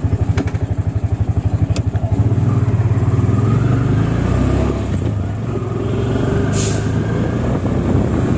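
Engine of a CNG auto-rickshaw, heard from inside its cab while riding. It chugs in rapid, even pulses, then about two seconds in it grows louder and smoother as it picks up speed.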